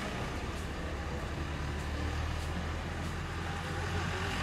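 Steady low rumble of outdoor street noise, with no distinct events.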